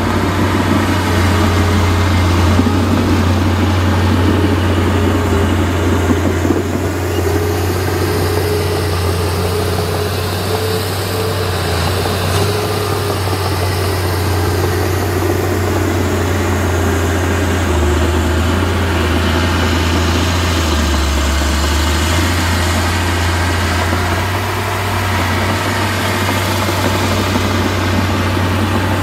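Diesel engine of heavy earthmoving machinery, a dozer or dump truck, running steadily with a deep drone that dips lower briefly a little past the middle.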